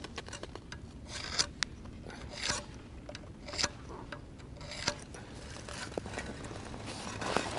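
Rasping scrapes from the blades of a hand ice auger, coming in strokes a little over a second apart. The blades are dull from sitting unused and are struggling to bite into the ice.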